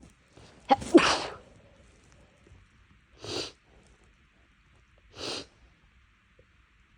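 A person sneezing once loudly about a second in, as part of a sneezing fit from a tickle in the nose, with a quick intake of breath just before it. Two shorter breathy bursts follow, about two seconds apart.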